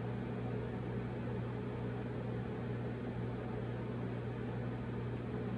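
Steady low electrical hum with a faint even hiss: room background noise with no other event.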